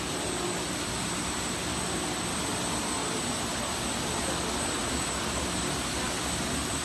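Industrial wide-belt roller-brush sanding machine running, its brush heads spinning and dust extraction drawing air, giving a steady even noise with a low hum.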